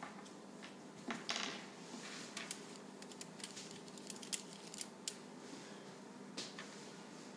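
Paper rustling briefly about a second in, then a run of light clicks and taps from paper and painting tools being handled close to the microphone, over a faint steady room hum.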